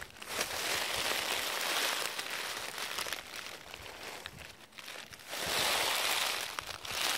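Footsteps crunching and rustling through a thick layer of dry fallen leaves, in two long stretches: one from the start to about three seconds in, a second louder one about two thirds of the way through.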